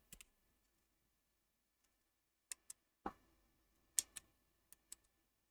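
A few faint, sharp clicks, several coming in quick pairs, from small equipment being handled while a repaired 12 V power supply is tested; otherwise near silence.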